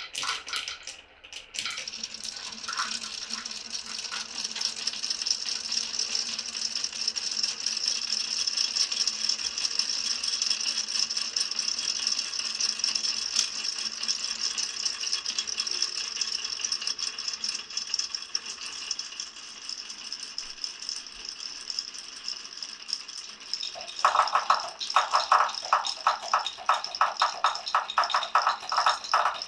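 Glass marbles rolling along a marble run, a dense, continuous rattle of many small clicks. About 24 seconds in, louder, rapid clacking sets in.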